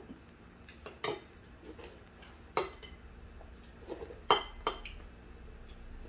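A metal spoon clinking against a metal pot and bowls while eating, about five sharp clinks at uneven intervals, the loudest and most ringing one about four seconds in.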